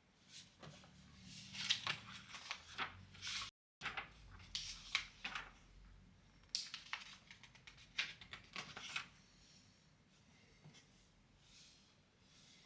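Book pages being handled and turned, with a run of irregular paper rustles and crackles that dies down about three-quarters of the way through.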